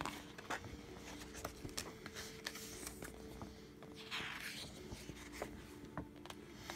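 Pages of a paper rulebook being turned by hand: soft rustling and sliding of paper with small ticks, and a louder swish of a page about four seconds in.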